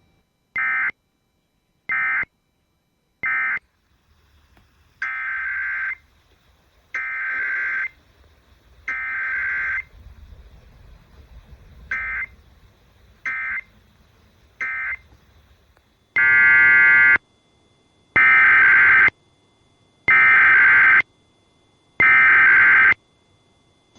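Emergency Alert System SAME digital data bursts off a radio broadcast, a harsh electronic buzzing repeated at about one-second spacing. Three short bursts, the end-of-message code closing one test, are followed by three roughly one-second header bursts, three more short bursts, and four louder one-second bursts near the end.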